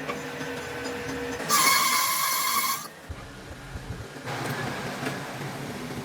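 Machine tool cutting grooves into a steel excavator wheel hub: a cutting pass with a loud, high, screechy hiss about a second and a half in that stops abruptly, then a quieter pass later, over the steady hum of the machine.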